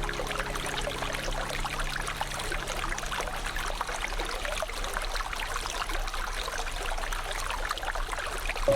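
Shallow river flowing, an even trickling, splashing wash of water. Held low music tones fade out about four seconds in.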